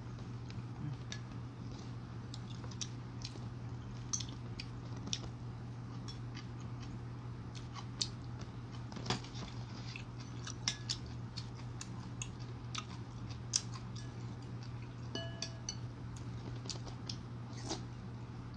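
Eating sounds: a metal spoon and chopsticks clicking against a ceramic bowl of chicken ginseng soup at irregular moments, with chewing, over a steady low hum.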